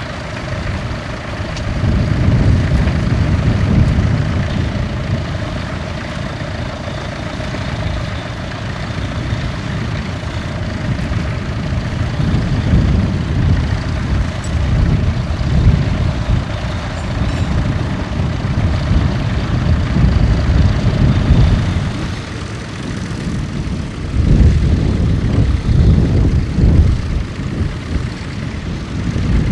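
Tractor engine running steadily under load, a low rumble that swells and eases several times.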